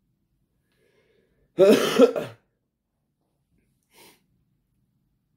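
A man's brief throat-clearing cough, loud and under a second long, about one and a half seconds in; a faint short sound follows near four seconds.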